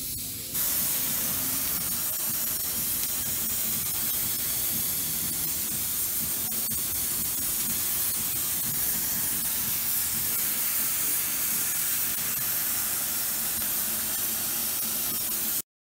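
Handheld hair steamer hissing steadily as it blows steam onto the hair, cutting off suddenly near the end.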